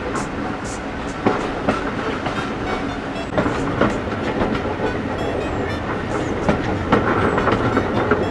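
Heritage steam train running along the line: wheels clattering over the rail joints, irregular knocks over a steady rumble.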